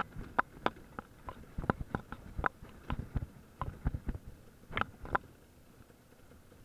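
Irregular sharp knocks and rattles from a dirt bike jolting over a rough forest trail, over a low rumble, with no clear engine note. The knocks thin out near the end.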